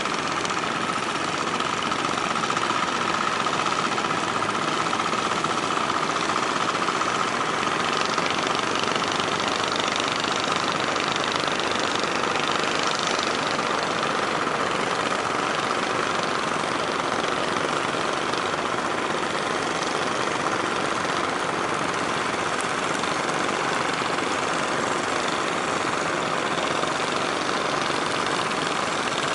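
Fishing boat engines running steadily, an even mechanical drone that does not change.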